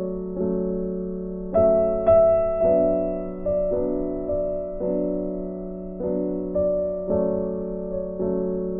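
Background music: a slow, gentle piano melody, a new note about every half second, each one ringing and fading, over a held low note.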